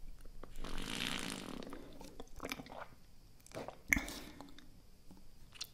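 Sipping and swallowing through the mouthpiece of an Air up scent-pod water bottle, close to the microphone, with a sharp click about four seconds in.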